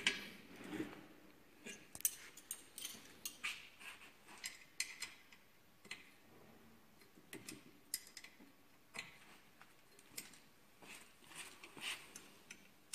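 Light, irregular metal clicks and taps of a hand tool on the air bike's bolts and nuts as they are given a final tightening.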